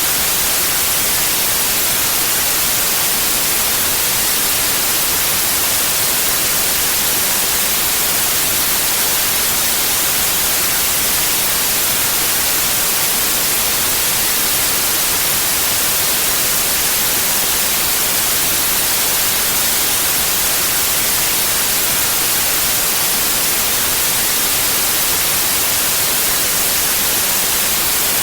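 Steady white noise: an even, unchanging hiss, brightest in the high frequencies, with no variation at all.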